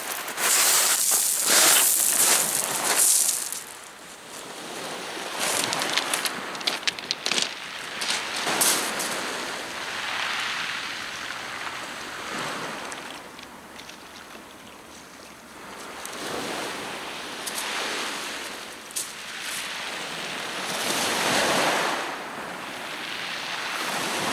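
Small waves breaking and washing up a pebble beach, the surf swelling and fading every few seconds, with short clicks of stones in the wash.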